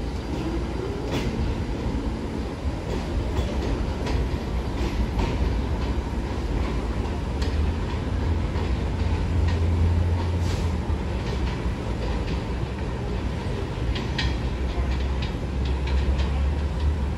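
R46 subway train pulling away along an elevated steel structure: a steady low rumble from the motors and wheels, with scattered sharp clicks from the wheels on the track.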